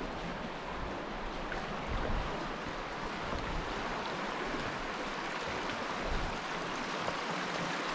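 Steady rushing of flowing creek water around a kayak, with a couple of soft low thumps about two and six seconds in.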